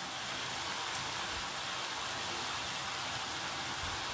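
Chicken pieces and ground spices sizzling steadily in hot oil in a kadai, a continuous even hiss.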